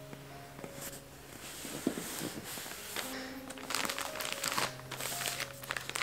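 Plastic poly mailer bags crinkling and rustling as hands handle them in a cardboard box, in irregular bursts that get busier after about three seconds. Soft background music with held notes runs underneath.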